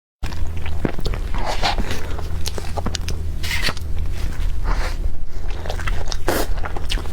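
A person biting into and chewing crunchy food, with short crisp crunches and crackles scattered through, over a steady low hum.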